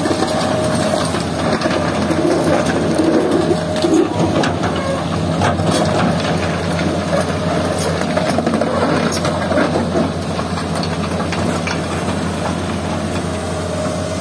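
Hitachi hydraulic excavator's diesel engine running steadily under working load as it digs and swings, with scattered sharp knocks. The engine is a little louder through the middle stretch.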